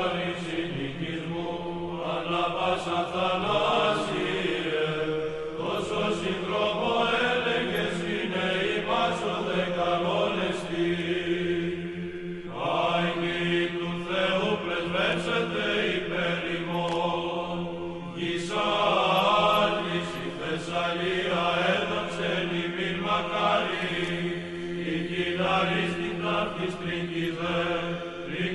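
Church chant: voices singing slow melodic phrases over a steady held drone note, with short pauses between phrases, in the manner of Orthodox liturgical chant.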